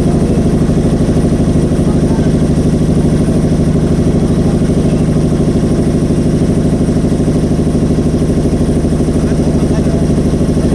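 Motorboat engine running steadily at an unchanging speed, a loud even throb.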